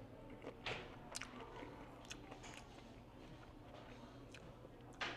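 A person chewing food close to a clip-on microphone, quiet, with a few small clicks. A sudden louder knock comes right at the end.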